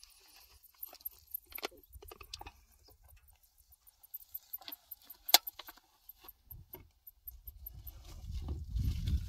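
Scattered light clicks and clinks, with one sharper, louder click about five seconds in; a low rumbling noise builds near the end.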